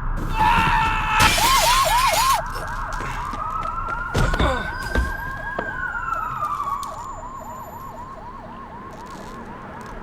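A loud burst of noise in the first two seconds, then a police siren in a fast yelp pattern, about three sweeps a second, slowly fading away. One long tone rises and then falls over it in the middle.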